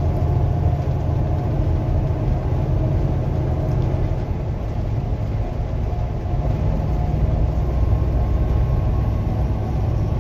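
Steady low engine drone and road rumble inside a moving truck's cab while cruising along the highway.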